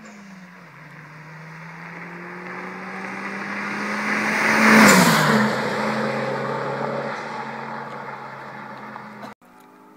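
A car driven hard passes by at speed. Its engine and exhaust note grows louder as it approaches, peaks and drops in pitch as it goes past about five seconds in, then fades away. The sound cuts off suddenly near the end.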